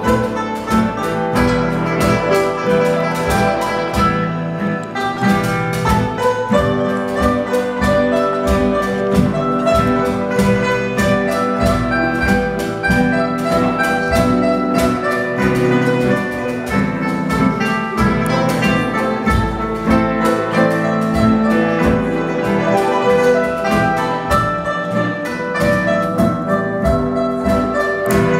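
Live band music led by a guzheng (Chinese zither), its plucked strings over electric keyboard, electric guitar and acoustic guitar.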